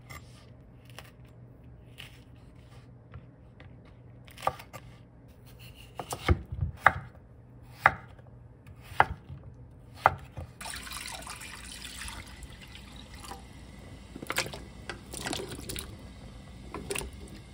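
A chef's knife cutting through shishito peppers and raw potato on a wooden cutting board, with single sharp strikes about a second apart. Past the middle, water runs steadily and potato cubes splash as they are tipped into a pot of water.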